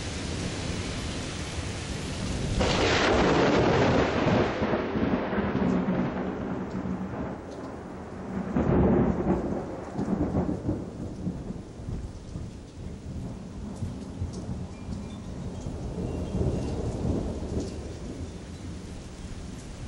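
Thunder rumbling over steady rain. A loud peal rolls in a few seconds in, a second swell follows about halfway through, and both fade back to the hiss of rain.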